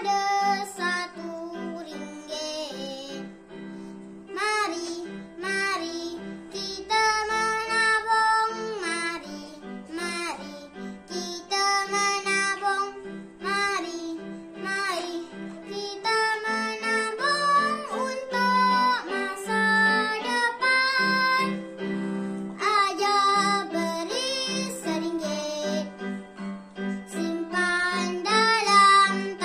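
A young boy singing a children's addition song in Malay about saving coins in a money box, over an instrumental backing with a steady repeated pulse.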